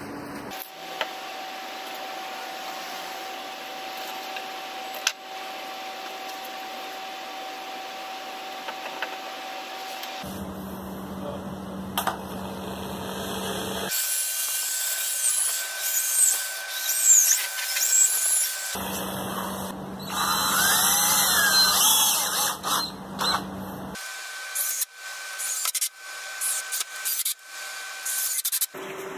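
Drill press boring holes in a wooden board, the bit cutting in for several seconds at a time, twice. This is followed by a run of sharp clicks and knocks as screws are driven into the board.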